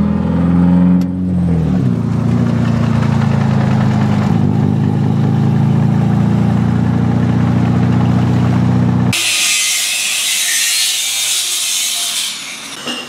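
Car engine running at steady revs, its pitch dipping briefly about a second in, then cutting off abruptly about nine seconds in. A harsh high hiss follows for about three seconds.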